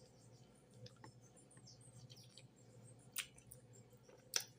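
Quiet background with faint bird chirps and two sharp clicks, about three and four and a half seconds in.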